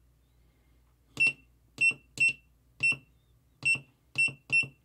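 Sealody SSA60 soldering station's button beeper: seven short, high-pitched key-press beeps at uneven intervals as the menu setting is stepped up one press at a time.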